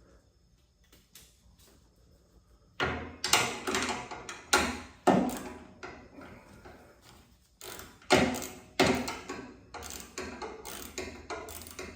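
Metal clanking and knocking from tools and hinge hardware being handled, starting about three seconds in as a run of loud, irregular sharp strikes.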